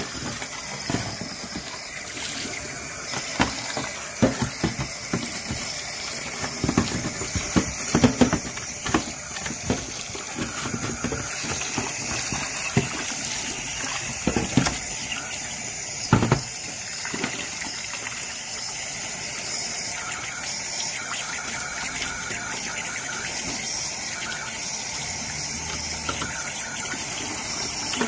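Hot water tap running in a steady stream into a stainless steel sink, splashing over a plastic washing machine detergent drawer being rinsed. Short knocks and taps come through the first half, loudest about 8 and 16 seconds in.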